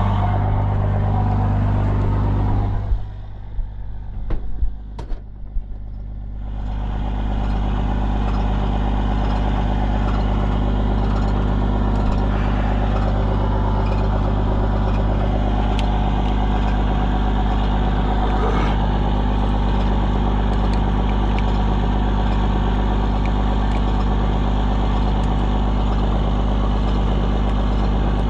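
Vehicle engine idling steadily with a low hum; it drops out about three seconds in, with a few clicks, and builds back up to a steady idle from about six seconds on.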